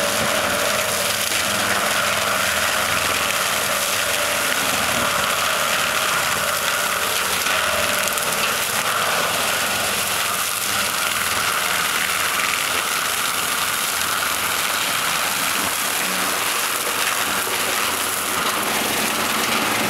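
Tractor engine running under load while its hydraulic-mounted forestry chopper's rotor drum shreds Christmas trees and debris at ground level: a steady, loud mechanical din with no let-up.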